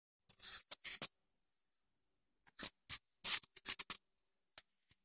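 Short scratchy, rustling noises in a handful of brief bursts, clustered near the start and again in the middle, with silence between them.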